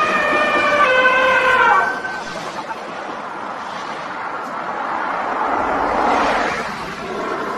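A vehicle horn sounds one long blast of about two seconds, two tones overlapping, then stops. A steady rushing noise follows, swelling around six seconds in.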